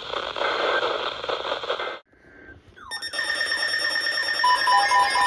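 Weather-radio static hiss that cuts off sharply about two seconds in. After a short gap, an electronic alert sound starts, with steady tones and then a regular two-note alternating beep from about four and a half seconds.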